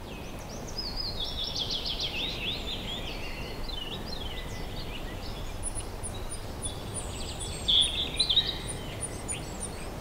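Outdoor ambience of songbirds singing over a steady low background rumble. A run of very high, evenly spaced chirps (about three a second) comes in about halfway through, and a louder burst of song comes near the end.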